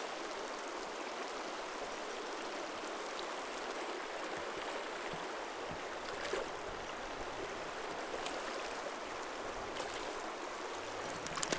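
Steady rush of a shallow river riffle running over gravel and cobbles, with a few faint clicks.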